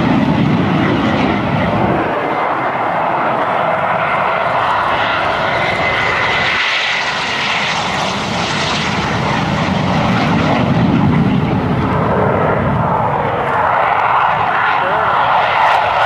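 Military jets taking off one after another, among them a Canadair CT-114 Tutor, a BAE Hawk and an F-16: continuous loud jet engine noise at takeoff power, with a thin high whine about a third of the way through.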